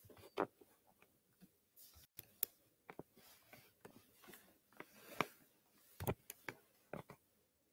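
Faint, irregular small clicks and light rustles in a quiet room, about a dozen scattered through, the sharpest about five seconds in.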